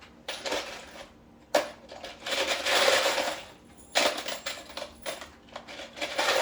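Cordless impact driver driving a screw into a door hinge in several short bursts of rapid rattling hammering, stopping and starting as the screw is snugged down flush.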